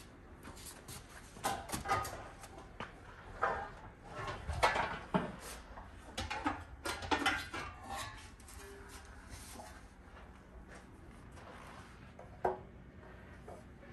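Intake parts and their packaging being handled on a workbench: irregular clicks, knocks and plastic rustling, busiest in the first half, then a single sharp click near the end.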